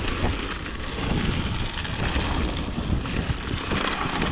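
Wind rushing over an action camera's microphone on a fast downhill mountain-bike descent, with the steady rumble of riding over the trail.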